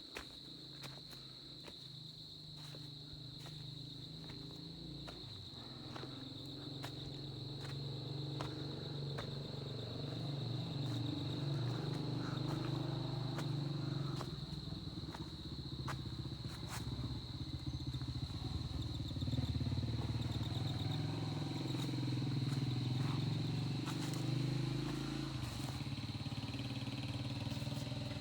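A motor engine running, slowly growing louder over the first half and staying loud, with a steady high-pitched tone held over it.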